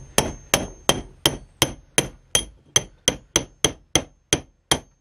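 Hammer tapping on a steel rod used as a drift, about three light, evenly paced blows a second, each with a short metallic ring. It is easing a tight-fitting part home on a mild-steel piece.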